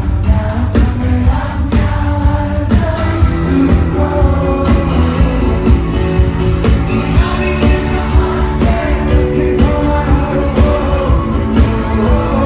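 Rock band playing live, with a lead singer over guitars and a steady beat of drum and cymbal hits about once a second.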